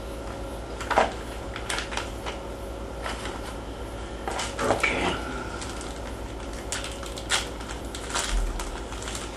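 Small clear plastic parts bags being opened and handled, crinkling and rustling, with light clicks of the small parts inside. The handling comes in short bursts, loudest about a second in, around five seconds in and about seven seconds in.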